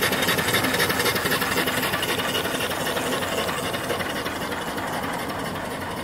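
Small boiler-mounted steam engine, rated at 3 to 4 horsepower, running with a rapid, even exhaust chuff and steam hiss. It gets gradually quieter across the few seconds.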